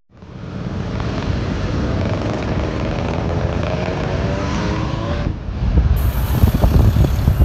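Bus engine running, fading in, its pitch drifting slowly upward. About five seconds in, the sound cuts to wind buffeting the microphone over a low rumble.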